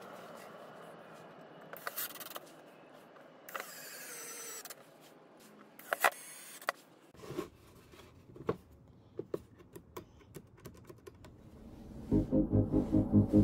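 Cordless drill-driver driving screws into a plywood box, in two short bursts of motor whine with clicks and knocks of handling between. Loud rhythmic music starts near the end.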